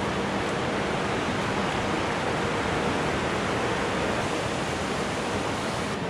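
Steady rush of flowing stream water from the spring-fed Dan Stream.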